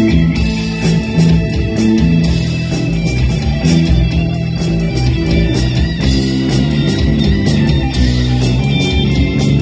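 A live band playing through a PA, with electric bass, electric guitar and a drum kit. A loud, strong bass line moves under steady cymbal and drum hits.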